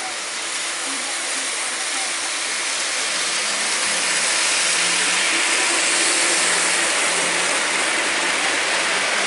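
Model trains running on a layout: a steady whirring, rattling hiss of electric motors and wheels on the track with a faint hum underneath, growing a little louder about three seconds in.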